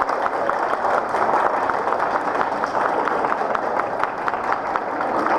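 A small crowd applauding: many people clapping at once, an unbroken patter of hand claps.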